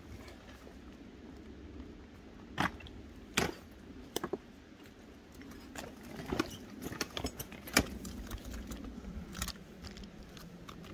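Loaded gear cart being hauled over a log, its load rattling and clanking, with a few sharp knocks followed by a busier run of knocks and rattles.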